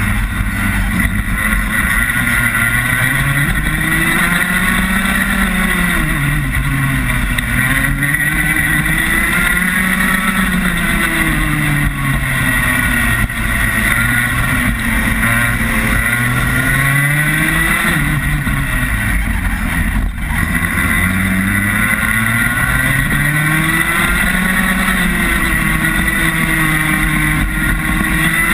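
Rotax Max 125cc single-cylinder two-stroke kart engine, heard up close from the kart itself, revving up and dropping back over and over as the kart accelerates down the straights and slows for the corners.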